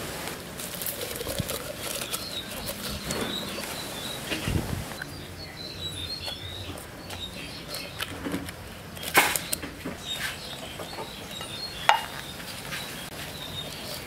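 Hands rustling and pressing sliced vegetables and herb stalks down into a hollowed-out pumpkin, with two sharp knocks about nine and twelve seconds in. Small birds chirp in short calls throughout.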